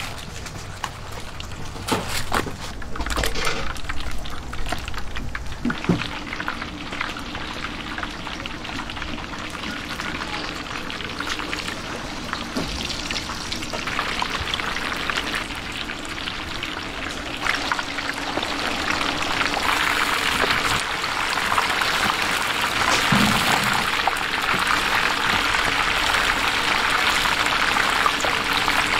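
Chicken frying in hot oil: a dense crackling sizzle that grows louder in the second half, with a few clicks and knocks near the start.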